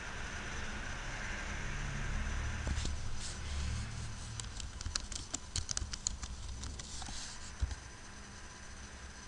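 Typing on a computer keyboard: a run of irregular key clicks lasting about four seconds, ending with one harder tap, the Enter key posting the comment. A low steady hum runs underneath.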